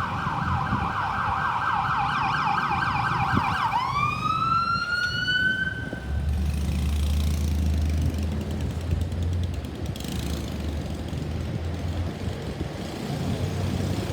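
Ambulance electronic siren in a fast yelp that switches to a single rising wail about four seconds in and cuts off about two seconds later. A low steady vehicle engine rumble follows.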